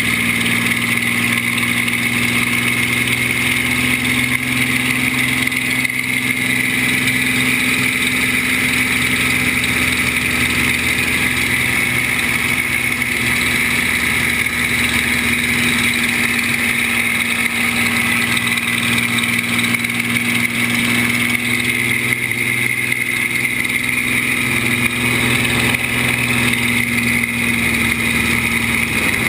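Spitfire's Rolls-Royce V12 engine running steadily under power in flight, heard from the cockpit as a loud, even drone.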